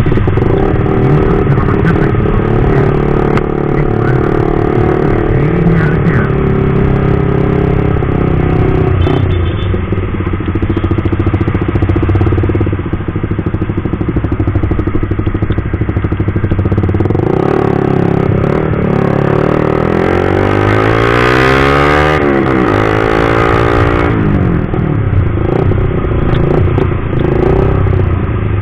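Suzuki GSX-R150's single-cylinder engine running through an aftermarket CLDX Monster exhaust while being ridden, heard from the rider's seat. Its pitch climbs and falls a few times about two-thirds of the way through as the rider works the throttle, with a burst of wind rush at the same time.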